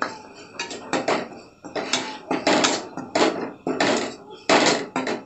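A utensil scraping and stirring chilli and turmeric powder in hot oil in an aluminium kadai. It goes in even strokes about every two-thirds of a second, louder from about two seconds in.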